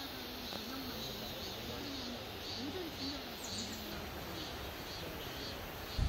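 Forest ambience: a steady soft hiss, with faint distant human voices and faint short high chirps now and then.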